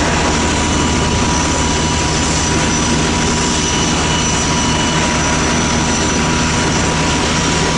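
Helicopter sound effect: steady engine and rotor noise with a constant high whine.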